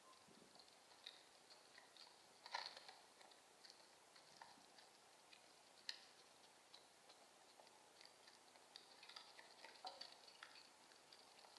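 Near silence broken by faint, irregular small clicks and ticks, a little louder about two and a half seconds in and again about six seconds in.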